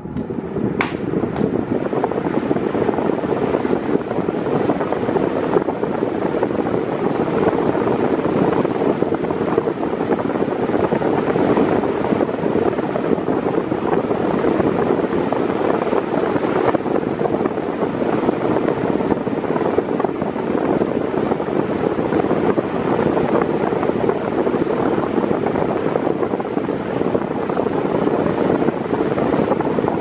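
Mondial 40 cm eight-blade fan running steadily at medium speed, a constant rush of air from the blades. There is a light click about a second in.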